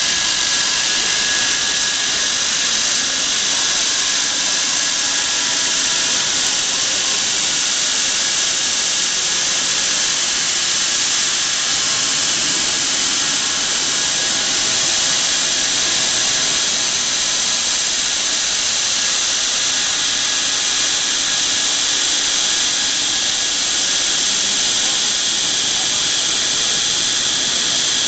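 GRIT GIM mobile belt grinder running, its abrasive belt grinding steel in a loud, steady, high hiss.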